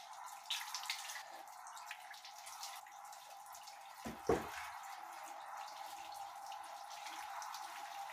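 Kitchen tap running into the sink, the stream splashing over hands and a knife rinsed under it, a steady even hiss. A single sharp knock about four seconds in.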